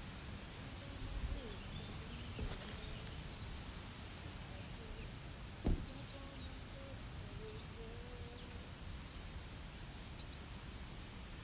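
Outdoor ambience: a steady low rumble with faint bird calls, and a single short knock a little before the middle.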